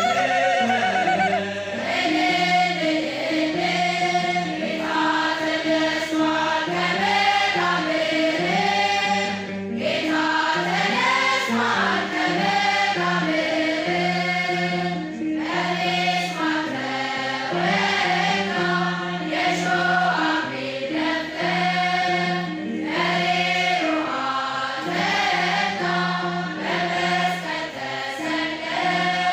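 Choir of women singing an Ethiopian Orthodox Tewahedo mezmur (hymn) together, the melody moving over held low notes that change every couple of seconds.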